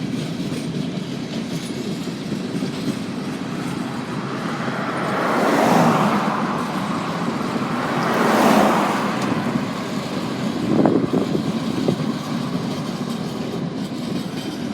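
Freight train rolling past on the rails: a steady rumble of wheels with two louder swells about six and eight seconds in, and a few sharp clicks near eleven seconds.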